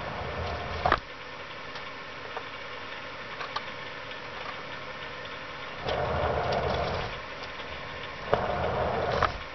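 Hands shifting a rubber-tyred wheel about inside a wooden box: two short stretches of scraping and rubbing in the second half, with a few sharp clicks, over a steady low hum.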